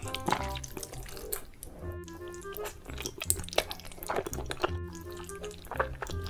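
Wet slurping and chewing of creamy carbonara fire noodles, with light background music carrying a simple stepped tune.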